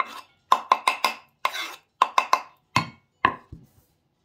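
Kitchen knife knocking and scraping on a wooden cutting board, about ten quick strokes, as chopped chillies are pushed off the board into a bowl.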